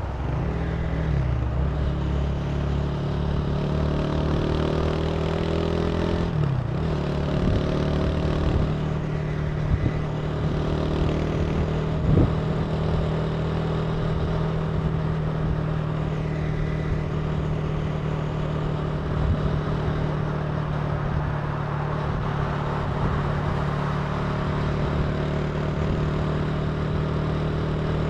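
Italika TC300 motorcycle engine accelerating, its pitch rising over the first few seconds and dropping briefly at a gear change about six seconds in, then holding a steady cruising note over wind and road rush.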